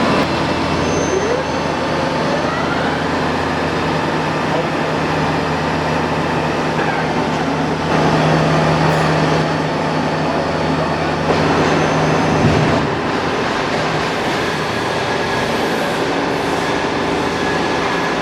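UNION BFP 130 floor-type horizontal boring mill running under power: a steady mechanical drone with several steady tones. A short rising whine comes about a second and a half in, and a louder low hum runs from about eight to twelve and a half seconds.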